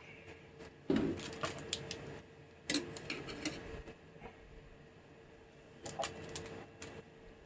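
Screwdriver and metal mounting rails clicking and knocking against a CD-ROM drive's metal casing while the rails are fitted: a sharp knock about a second in, a run of small clicks, another knock near three seconds, and a few more clicks near six seconds.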